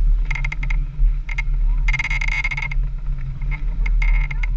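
A 4x4's engine running at low speed on a rough mud trail, a steady low drone under a run of sharp clicks and knocks from the vehicle working over the ruts. About two seconds in there is a short squeal that lasts under a second.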